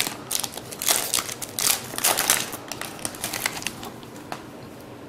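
Trading-card pack wrapper being torn open and crinkled by hand: irregular bursts of crinkling for about the first three seconds, then dying down to faint handling ticks.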